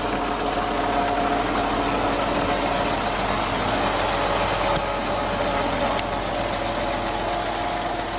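A vehicle engine running steadily, with a low hum and a dense even noise that do not change. Two faint clicks come about five and six seconds in.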